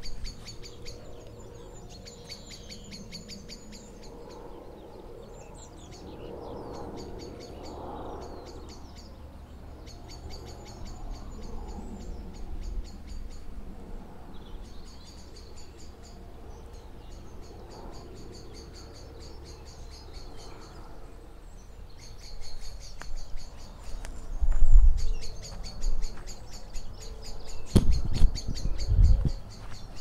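High-pitched chirping trills of countryside wildlife, coming in repeated bursts of a second or two. A few loud low thumps come near the end.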